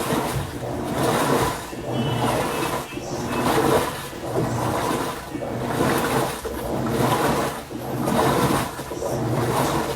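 Philco PLR14B top-load washing machine agitating: the agitator swishes back and forth, churning water and a heavy throw, in a regular surge about once a second.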